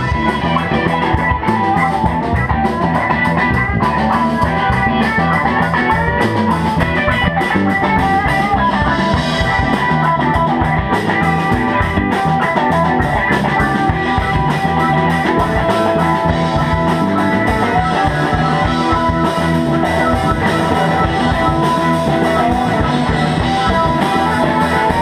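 Live rock band playing an instrumental passage with no singing: electric guitar, bass guitar, drum kit and keyboard.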